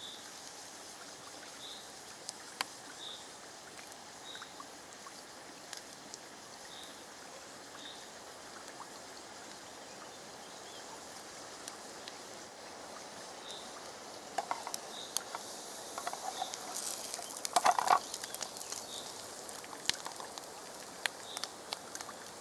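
Patty frying in oil in a small pan: a quiet steady sizzle that turns into crackling and spattering pops in the second half, with a louder burst of crackle about eighteen seconds in.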